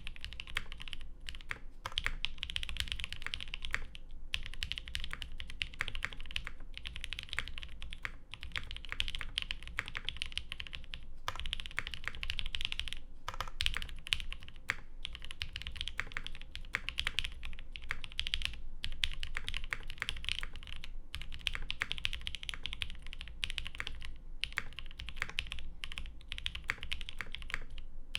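Continuous fast typing on a Mode Designs SixtyFive mechanical keyboard: lubed 62g Creamsicle linear switches in an isolated top-mount case with a carbon fiber half-plate and GMK keycaps, no dampening. Rapid keystroke clacks in long runs with brief pauses between bursts.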